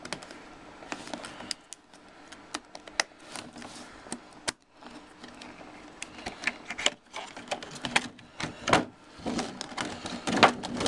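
Clear plastic shrink-wrap being picked at and peeled off a boxed Blu-ray set by fingers: irregular sharp crackles and clicks, sparse at first and growing denser and louder in the second half.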